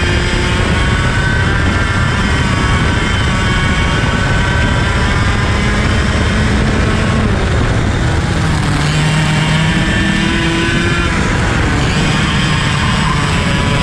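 IAME KA100 kart's 100cc air-cooled reed-valve two-stroke engine running hard at racing speed, its pitch climbing under acceleration and dropping back as the kart slows for corners, with a steady rush of wind and track noise.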